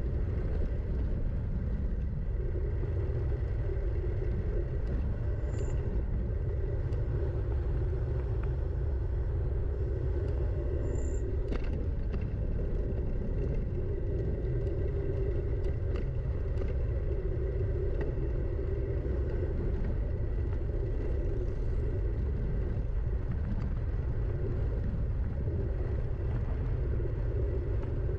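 Steady low rumble of wind and ride noise on a downhill trail descent, with a few faint knocks.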